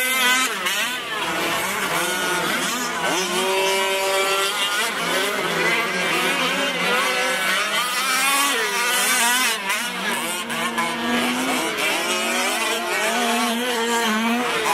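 Several Losi 5ive-T 1/5-scale RC race trucks' small two-stroke gas engines running together, their whining pitches rising and falling over each other as the throttles are opened and closed.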